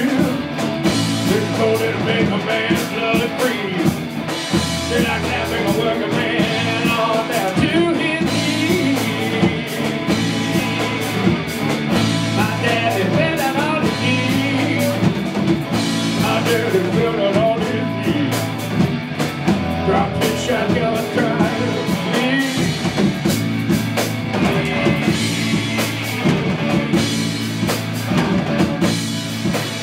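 A rock band playing live, with electric guitars and a drum kit and a man singing over them.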